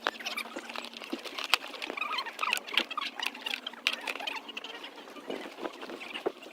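Footsteps and rustling while walking: an irregular run of light ticks and scuffs, over a faint steady hum.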